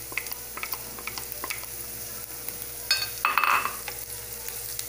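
Chopped garlic, ginger and onion sizzling in hot oil in a frying pan, with small clicks and scrapes from a wooden spatula stirring them. About three seconds in there is a brief, louder clattering knock.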